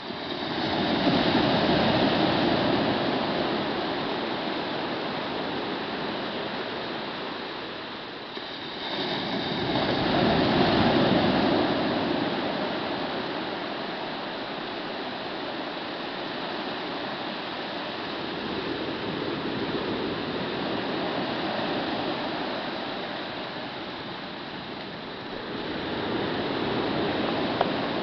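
Ocean surf: waves breaking and washing up the shore in a steady rushing hiss. The sound swells and ebbs every several seconds, loudest about a second in and again around ten seconds in.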